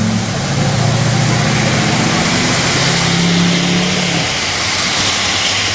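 A van's engine running while it drives, over a loud steady hiss of rain and tyres on wet road.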